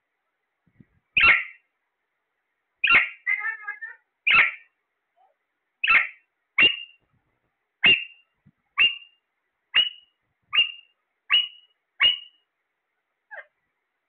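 Parakeet giving a series of short, sharp calls, about eleven in all, which come closer together in the second half, with a brief chatter just after the call near three seconds in.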